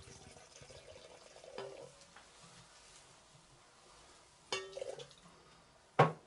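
Faint trickle of 2K anti-mist thinner being poured into a paint spray gun's metal cup, over the first two seconds or so. Two brief handling sounds follow, about four and a half seconds in and a sharp click near the end.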